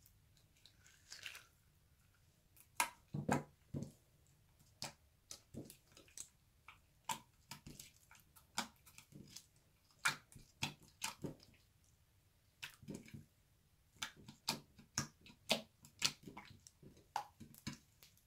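Sticky glitter slime squeezed and kneaded by hand, giving irregular short squelches and sharp clicks as it sticks and pulls away, in clusters with brief pauses between.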